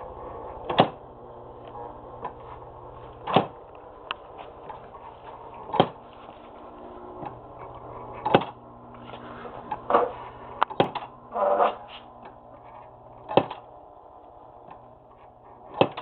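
The working parts of a wooden model sawmill running. A steady mechanical hum lies under a sharp knock that repeats about every two and a half seconds, with a few smaller clicks and a brief rattle around the middle.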